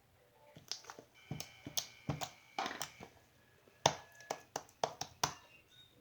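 Borax-activated glue slime being kneaded and stretched in the hands, giving irregular sticky clicks and pops, the loudest about four seconds in.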